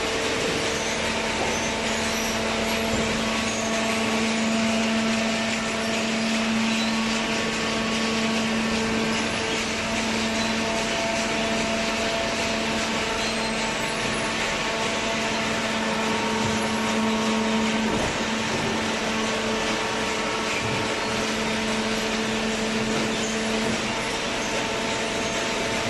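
Hydraulic waste paper baler running: the pump and motor give a steady hum with a few higher held tones over a constant mechanical noise, and the lowest tone drops out near the end.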